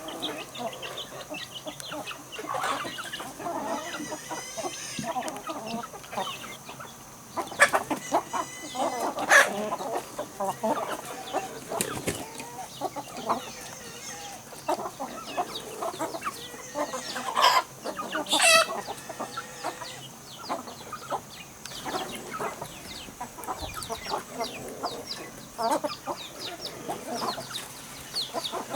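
Chickens clucking again and again, with a few louder, sharper moments standing out.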